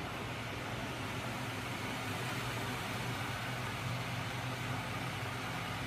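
Homemade magnet engine rig driven by small 12 V electric motors running, giving a steady low hum with a hiss over it.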